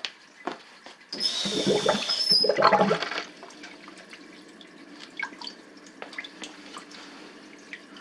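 Water turned on at the tap feeding a garden hose: a loud rush of water with a high whistle for about two seconds, then a quieter steady flow of water running through the hose into the sump crock.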